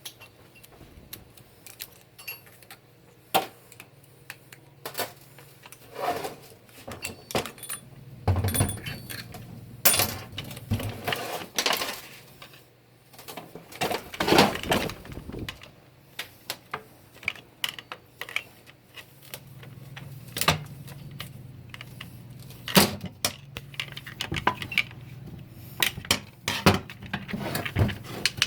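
Steel parts of a 4L60-E automatic transmission being handled during teardown: irregular metal clinks, knocks and short rattles, some ringing briefly. A faint steady hum runs underneath.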